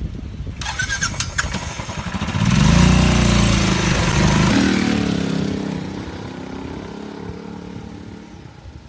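Royal Enfield Bullet Classic's single-cylinder engine running, revved hard about two and a half seconds in, then pulling away with its note dropping and fading.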